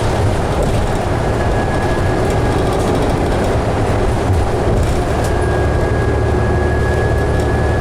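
Steady running noise inside the cabin of a 2011 New Flyer D60LFR articulated diesel bus under way: low drone of the drivetrain and road, with a faint high whine that holds steady from a little past halfway.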